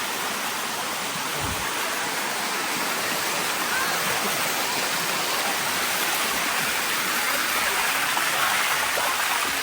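Water of a waterfall rushing and splashing steadily down its rock cascades, a constant hiss that swells slightly near the end.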